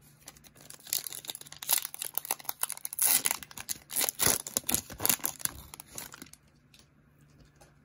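Trading card pack wrapper being torn open and crinkled by hand: a dense run of sharp crackles starting about a second in, loudest in the middle, stopping about six seconds in.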